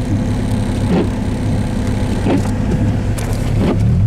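Steady low running noise of a car, engine and tyres, heard from inside the cabin while driving on a snowy street, with a few short knocks.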